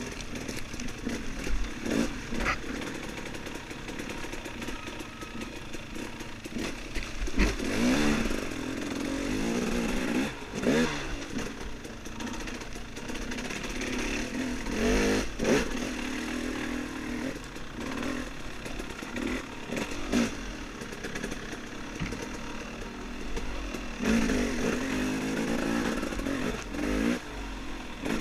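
Off-road dirt bike engine revving up and down repeatedly as it is ridden over trail terrain, with occasional knocks and clatter.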